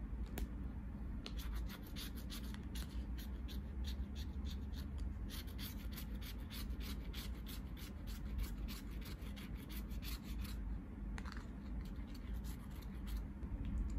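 A run of short, irregular scratching and rubbing sounds, several a second, over a low steady rumble.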